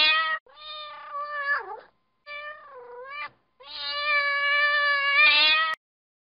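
Domestic cat meowing: a run of long, drawn-out meows with short pauses between them, some bending down in pitch at the end, the last held about two seconds.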